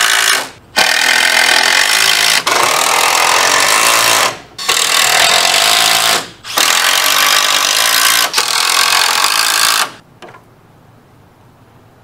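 Cordless drill driving screws into a wooden wall frame. It runs loud in several stretches of a few seconds each, with short pauses between, and stops about ten seconds in.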